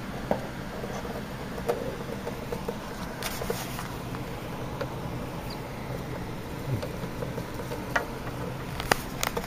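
Mice moving about a cage with shredded-paper bedding: small scattered clicks, scratches and light rustles over a steady low hum. A few sharper clicks come near the end.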